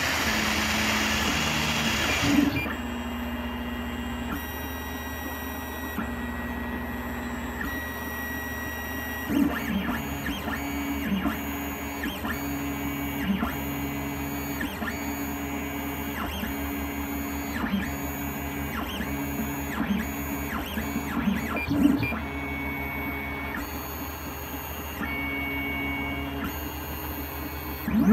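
3D printer's stepper motors whining as the print head moves back and forth laying infill: short steady tones that switch pitch every second or so, with occasional clicks. A louder steady hiss covers the first two seconds or so.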